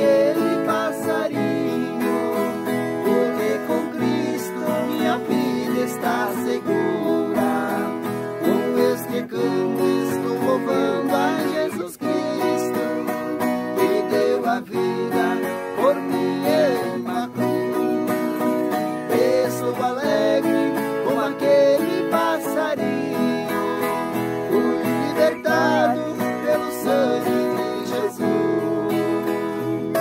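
Two violas caipiras, Brazilian ten-string folk guitars, plucked and strummed together, with two men's voices singing a duet over them.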